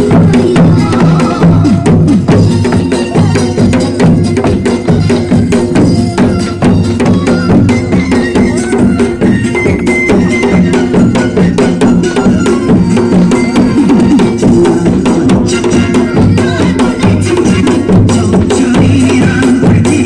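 Korean folk dance music with live drumming: a janggu hourglass drum and small frame hand drums beaten steadily in time with the tune.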